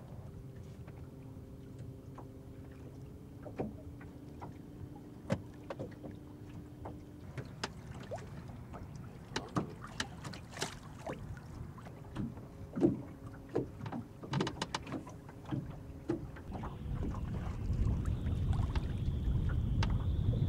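Small trolling boat under way slowly: a faint, steady motor hum at first, water slapping and knocking against the hull, and a low rush of wind and water building near the end.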